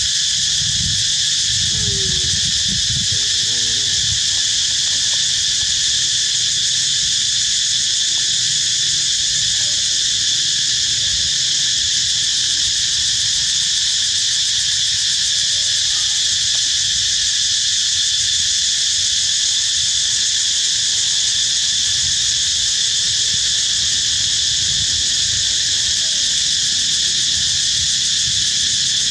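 Steady, high-pitched chorus of insects buzzing without a break, holding an even level throughout.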